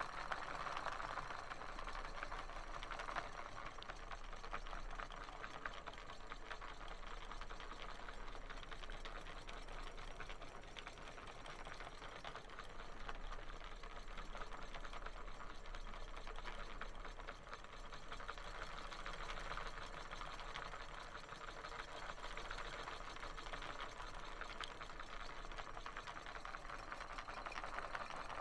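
Handmade popsicle-stick model engine running on 12 V DC and driving its reduction gears, shafts and propeller: a steady, rapid mechanical clatter.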